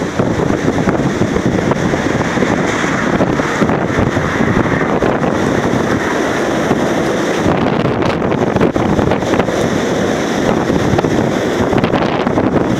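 Storm-force wind blowing hard and buffeting the microphone: a loud, steady rush without a break.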